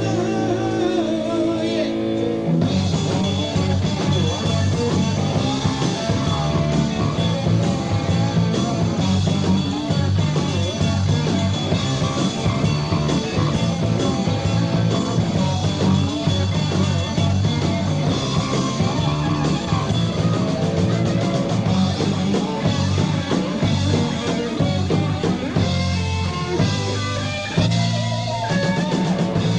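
Rock band playing live: electric guitar, bass and drums, with a voice singing at times. The first couple of seconds hold sustained guitar or keyboard notes before the full band with drums comes in about two and a half seconds in.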